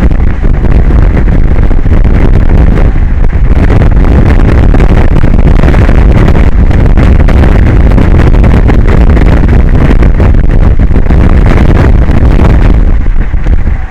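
Strong wind buffeting the microphone: a loud, unsteady, deep rumble that eases briefly near the end.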